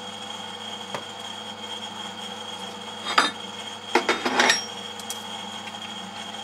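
Metal-on-metal clunks and rattles from lathe parts being handled: a click about a second in, a sharp knock after three seconds, then a cluster of knocks and rattles around four seconds in, over a steady faint hum.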